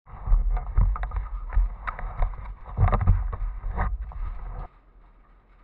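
Handling noise on a GoPro: heavy rubbing and rumbling with irregular knocks as the camera is moved and handled, stopping abruptly a little under five seconds in.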